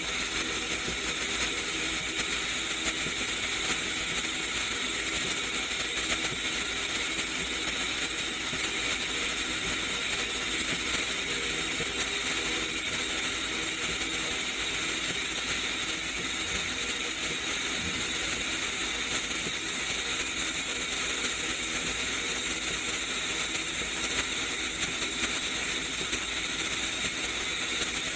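Automatic weaving welder's arc running a weld around a stainless steel (SUS 304) 65A pipe flange: a steady, unbroken hiss, strongest high up.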